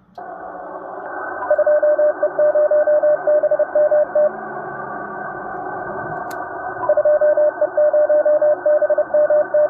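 Morse code: a single beeping tone keyed in dots and dashes over a steady hiss of radio static, with a thin, radio-like sound. It comes in two runs, with a pause of about two and a half seconds between them.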